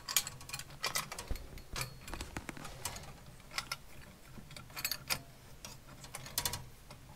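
Irregular light clicks and metallic clinks of brass and copper pipe fittings being handled and fitted onto a combi boiler's pipe connections.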